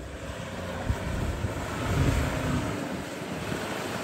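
Ford Endeavour SUV's diesel engine pulling hard through deep wet mud, its tyres churning and splashing mud and water. It grows louder, peaking about two seconds in.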